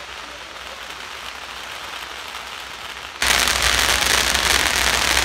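Firecracker strings going off in a rapid, continuous crackle of pops, suddenly much louder about three seconds in.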